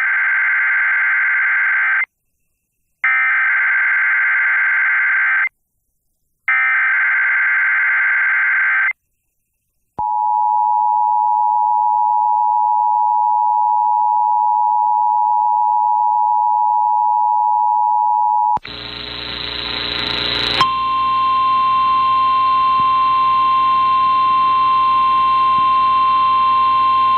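Emergency Alert System broadcast tones: three bursts of SAME digital header data a second apart, then the two-tone attention signal held steady for about eight seconds. After that a buzzy hum cuts in, and a single steady tone joins it about two seconds later.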